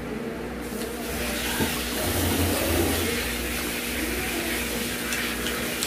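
Close-up chewing and crunching of crispy fried chicken, a steady crackly crunch with a few sharper crackles.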